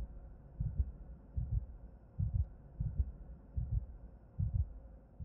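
Intro soundtrack of deep low thumps, about one every three-quarters of a second, over a faint steady hum.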